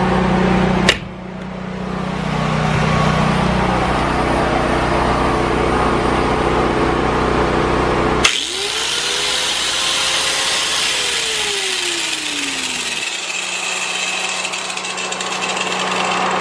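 A corded angle grinder running on generator power to test a new outlet. About halfway through it starts with a sharp onset, its whine rising, holding, then winding down as it coasts to a stop. The portable generator's engine hums steadily underneath.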